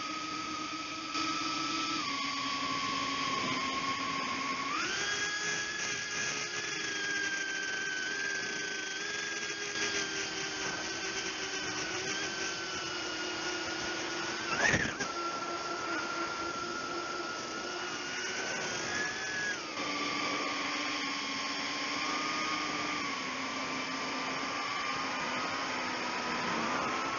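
Whine of a small FPV quadcopter's brushless motors and propellers, heard through its onboard camera, shifting pitch with throttle: it steps up about five seconds in, drops back about two-thirds of the way through and climbs again at the end. A brief, louder burst about halfway through.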